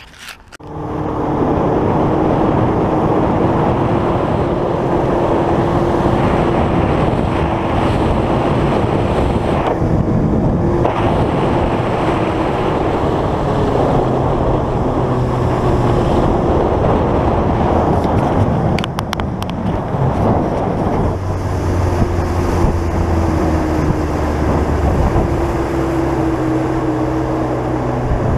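Boat's outboard motor running steadily underway, with wind buffeting the microphone.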